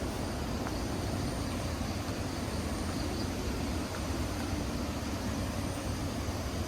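Steady rushing noise of a waterfall's falling water, even and unbroken.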